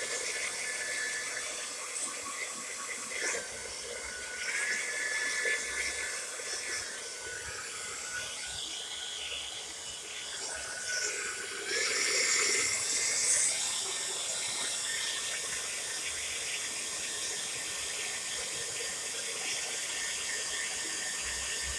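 Tresemme Salon Smooth Professional hair dryer running on its hot setting: a steady rush of air with a faint motor whine that wavers slightly in pitch. It grows a little louder for a couple of seconds about twelve seconds in.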